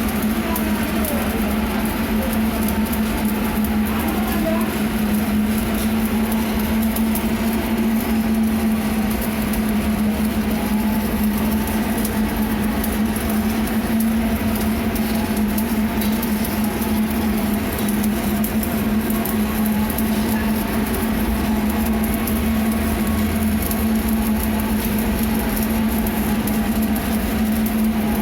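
Electric arc welding crackling steadily over a strong, constant low hum.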